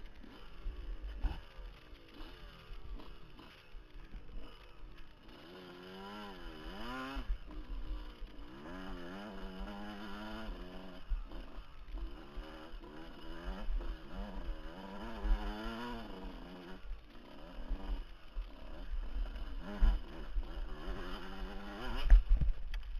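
Dirt bike engine revving up and down again and again as it climbs rough rocky ground, heard from a helmet camera, with knocks and low thuds from the bumps. A heavy thump comes near the end.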